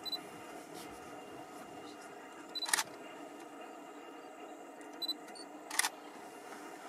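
Camera shutter clicks, two short bursts a few seconds apart, over a steady low hiss.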